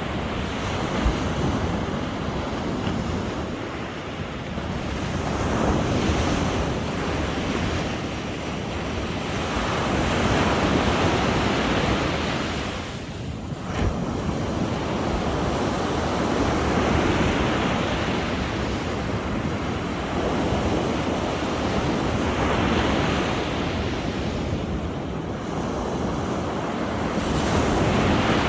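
Sea waves washing in, swelling and fading about every five or six seconds.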